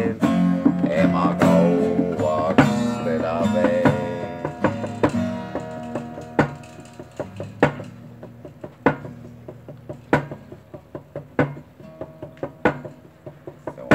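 Acoustic guitar strummed with a man's voice singing for the first four or five seconds. The voice then stops and the guitar goes on alone with single strummed chords about every second and a quarter, growing quieter as the song winds down.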